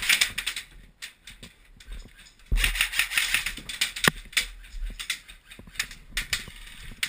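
Airsoft guns firing: a short burst of rapid clicking shots at the start, a longer, louder burst about two and a half seconds in, then scattered single shots.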